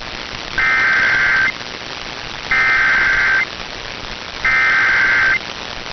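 Emergency Alert System SAME header: three identical bursts of buzzy digital data tones, each just under a second long and about a second apart, over steady radio hiss. It is the coded header that alerts other stations' receivers to relay a warning.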